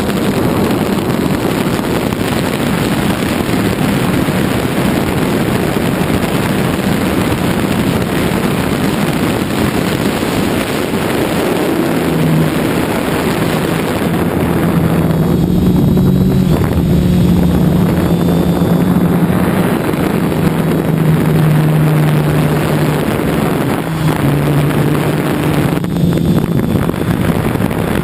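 Quadcopter's electric motors and propellers running, heard from the GoPro carried on the craft, with strong wind rushing over the microphone. About halfway through, a low propeller hum comes through more clearly and shifts up and down in pitch.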